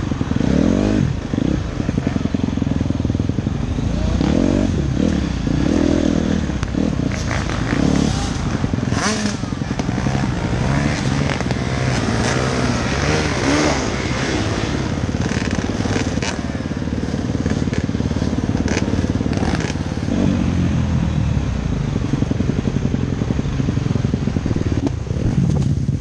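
Dirt bike engine heard close up from the rider's helmet camera, revving up and down unevenly as the bike picks its way along a rough wooded trail, with other dirt bikes running close by. A few brief sharp noises come in the middle.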